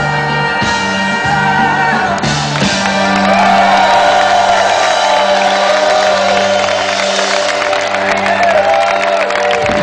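Live band with mandolin playing sustained chords near the close of a song, with a crowd cheering and whooping over the music from about two seconds in.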